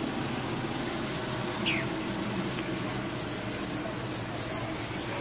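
Makeshift ice scraper scraping frost off a car's window in quick, regular strokes, about three a second.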